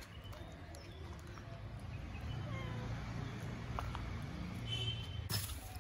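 Cat purring in a low steady rumble, with faint bird chirps in the background and a short rustle near the end.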